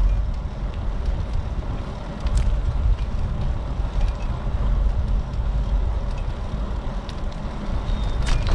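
Wind buffeting a GoPro's microphone while riding a bicycle: a steady low rumble, with two sharp clicks, one about two and a half seconds in and one near the end.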